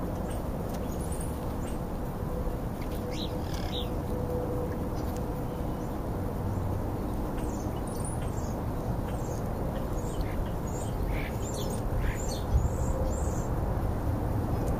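Black vultures feeding right at the microphone: scattered short, faint clicks and scrapes of bills working through the food pile, heaviest in the second half, over a steady low background rumble.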